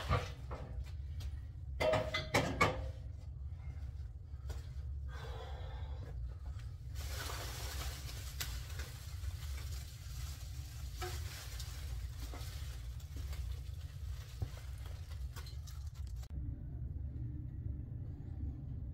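Clattering knocks of store display fixtures being taken down and handled, loudest about two seconds in, then a long stretch of rustling, scraping noise that stops abruptly near the end, over a steady low hum.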